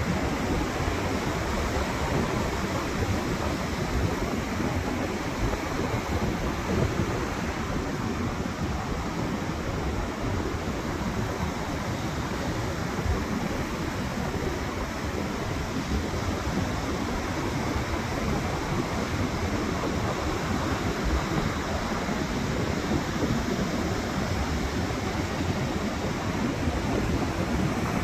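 Stormy sea surf breaking continuously, with strong wind buffeting the microphone.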